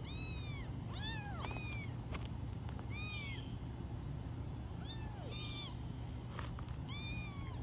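Young kittens mewing, about seven short, high, arching cries at irregular intervals, sometimes two close together, over a low steady hum.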